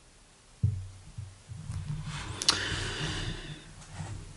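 A man's low hum and breathing close to the microphone, starting suddenly after a brief silence, with a breathy hiss in the middle.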